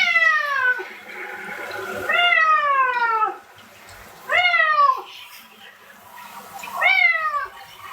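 A pet cat meowing loudly four times while being bathed, each long call starting high and falling in pitch: protest at having its head washed.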